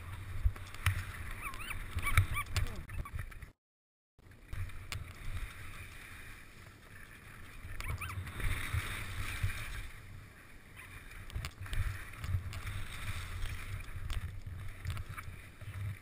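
Wind buffeting a helmet-mounted camera's microphone while skis scrape and chatter over snow on a fast descent, with knocks from the skis and poles. The sound cuts out completely for about half a second near the start.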